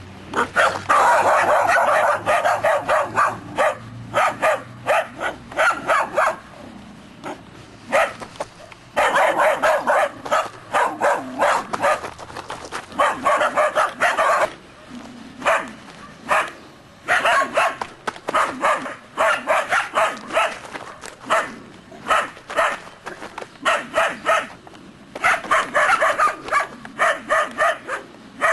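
Several Belgian Shepherd Groenendael puppies barking rapidly and overlapping in bursts with short pauses, guard barking at a stranger.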